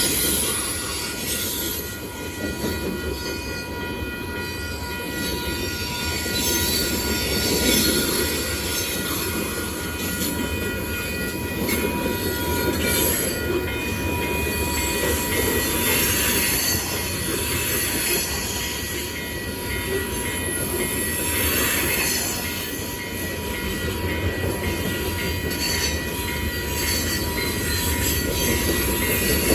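Freight cars of a long manifest train rolling past: a steady rumble of steel wheels on the rails, with a thin, continuous high squeal from the wheels.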